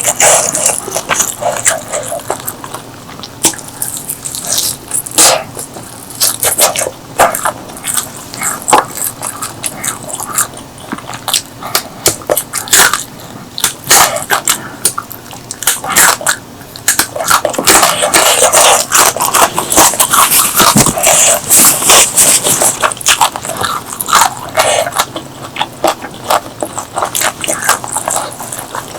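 Close-miked eating: biting and chewing food with many sharp, irregular crunching clicks, busiest about two-thirds of the way through.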